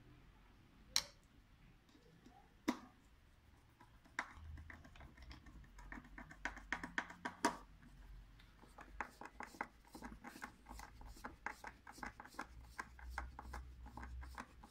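Screwdriver turning a small screw into a carbon-fibre speargun barrel to fix the reel's mounting piece: two sharp clicks early, then from about four seconds in a run of small quick ticks and scratches as the screw is driven, several a second.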